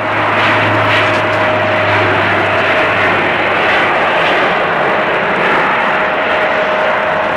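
Bombardier Dash 8 Q400 twin-turboprop airliner on final approach to land, a steady drone of its engines and propellers, strongest over the first few seconds.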